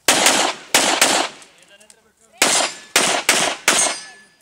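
Handgun firing rapidly: three shots in the first second, then after a pause of over a second, four more shots in quick succession.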